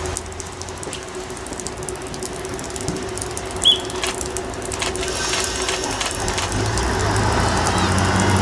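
Diesel engine of an HŽ 7121 series multiple unit running at a station with a steady hum, growing louder and deeper in the last couple of seconds. A short high chirp cuts in about halfway through.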